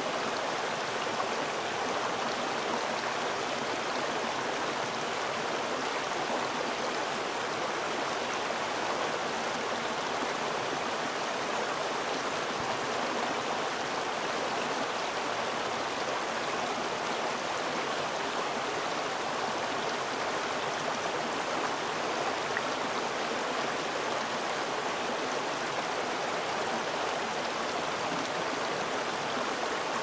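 Shallow mountain creek rushing and splashing over stones and small cascades, a steady, even water noise that does not change.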